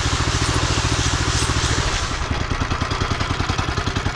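Gas engine of a power trowel running steadily with an even, rapid pulse, the machine working a fresh concrete slab; a hiss over the engine thins out about two seconds in.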